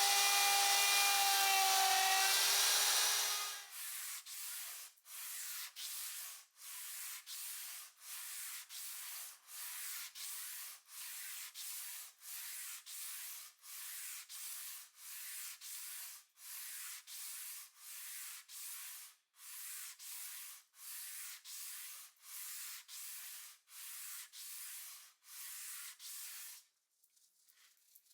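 A power tool's motor hums steadily, sags slightly and stops about three seconds in. Then comes hand sanding: sandpaper rubbed in quick, even back-and-forth strokes, about one and a half a second, with brief pauses, stopping shortly before the end.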